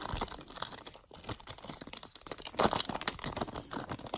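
Foil wrapper of a trading-card pack being torn open and crinkled, an irregular crackle.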